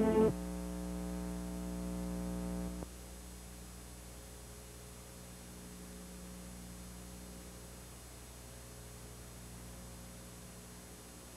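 Steady electrical mains hum with buzzy overtones, dropping suddenly to a fainter, lower hum about three seconds in.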